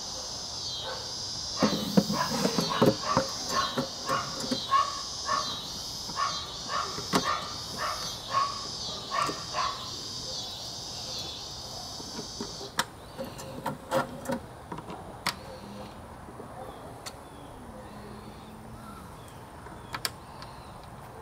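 Clear acrylic cover knocking and clacking against the base as it is handled and set down over a cassette-deck demo mechanism. The run of knocks is densest in the first half, with a few more later. Beneath them a high, evenly pulsing buzz stops suddenly about halfway through.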